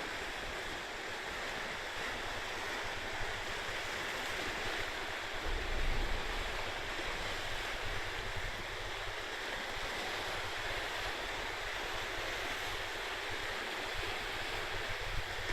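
Steady rushing of wind and sea, with wind rumbling on the microphone and a stronger gust about six seconds in.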